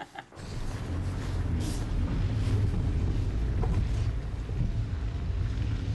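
A steady low rumble with a noisy hiss above it, coming in a moment after the start and holding steady.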